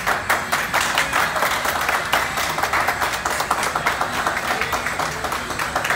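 A small group of people clapping, starting suddenly and keeping up a dense, steady patter of claps.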